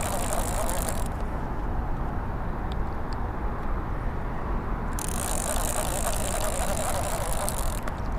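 Fishing reel being cranked to bring in a hooked catfish: a fine whirring in two spells, the first stopping about a second in and the second starting about halfway through and stopping near the end. Under it runs a steady rush of fast-moving water.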